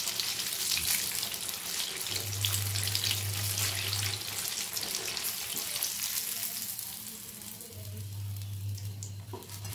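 Breaded potato-coated chicken drumstick deep-frying in hot oil: a dense crackling sizzle that dies down over the last few seconds as the drumstick is lifted out on a slotted spoon.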